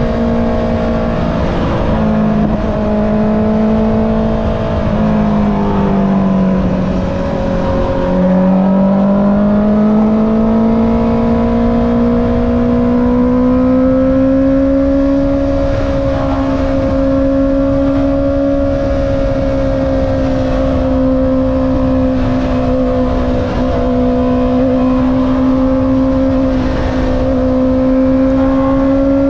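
Honda CB650R inline-four engine running through an Akrapovic exhaust while riding. The engine note dips about six seconds in, then rises slowly and holds at a steady cruising pitch.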